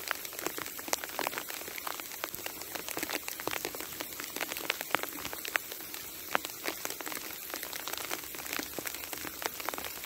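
Sleet falling: a dense, irregular run of small sharp ticks from ice pellets striking, over a steady hiss.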